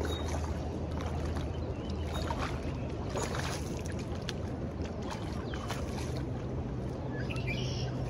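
Steady rushing of river rapids, with a low steady hum underneath and a few short bird chirps.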